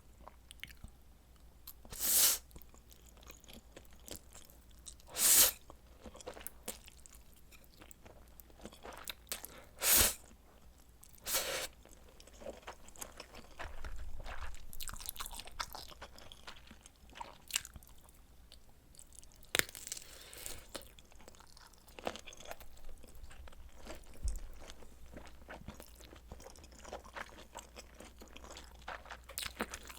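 Close-miked eating of spicy noodles and kielbasa sausage: four loud, short bites in the first twelve seconds, with quieter chewing and mouth sounds in between and for the rest of the time.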